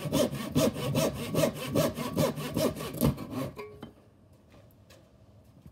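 Back saw cutting through a thin strip of scrap wood held in a wooden guide, in quick even strokes that stop about three and a half seconds in as the piece is cut off.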